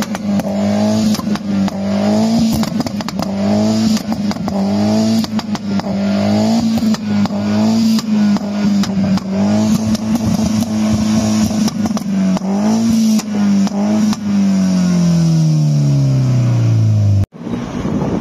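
Peugeot 208 GTi's 1.6 turbo four-cylinder engine held at high revs, its note wavering up and down about once a second with many sharp crackles. Near the end the revs fall away steadily.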